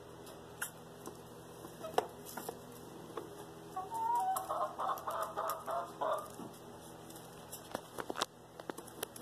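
Chickens clucking: a run of short clucks a little under four seconds in, lasting about two seconds, with scattered light clicks and rustles from pecking in wood shavings.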